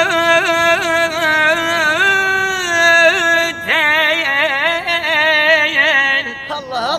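A singer holding long, ornamented notes in an Iraqi melismatic style, the pitch turning quickly about four or five times a second, then stepping to new notes and breaking off near the end.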